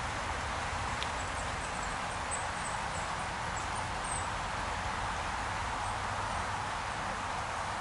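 Steady rushing babble of a small stream's flowing water, with a low rumble underneath and a few faint high chirps about two to four seconds in.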